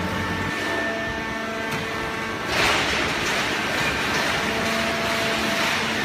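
Horizontal hydraulic waste-paper baler running, a steady machine hum with several held tones. About halfway through, a louder rushing noise sets in and carries on.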